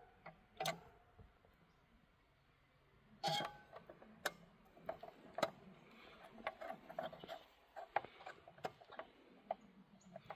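Clicks and light plastic knocks from an H8 fog light bulb being fitted and twisted by hand into the plastic housing of a fog light. The sharpest knock comes about three seconds in, followed by a run of small clicks.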